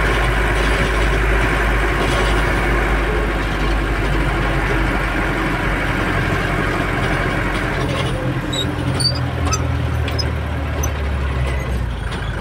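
Car engine and road noise heard from inside the cabin while driving. About two-thirds of the way through the sound changes to a lower drone with scattered light rattles, as the car leaves the asphalt for a rough stone street.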